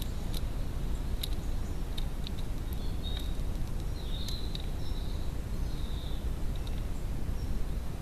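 Wood pigeon pecking seed from a plastic feeder tray, a scatter of sharp irregular clicks over a steady low rumble of outdoor background noise. Faint high chirps of small birds come and go.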